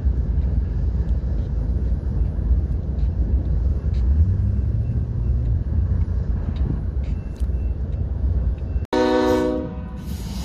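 Steady low rumble of a slow-moving Union Pacific freight train's lead GE diesel locomotives, an ES44AC and an AC4400CW. Near the end the sound breaks off abruptly and a short locomotive horn blast follows.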